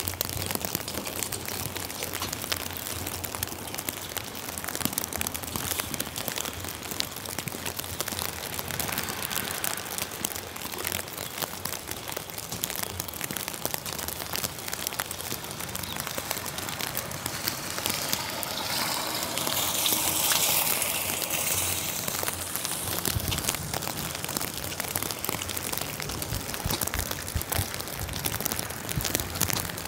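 Steady rain falling on wet pavement, with many fine drops ticking close by. About two-thirds of the way in, a louder hiss swells for a few seconds and then fades.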